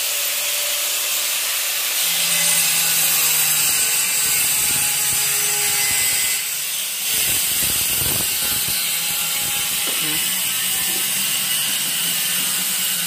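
A loud, steady mechanical rattling noise that runs without a break and stops abruptly.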